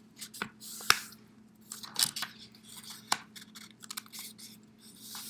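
Printer paper rustling and crackling as it is folded and creased by hand, with several sharp snaps, the loudest about a second in.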